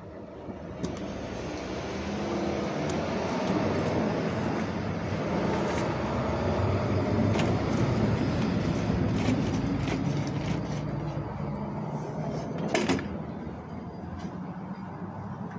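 A heavy road vehicle passing by: a low engine rumble that swells over several seconds and then fades away, with a sharp click near the end.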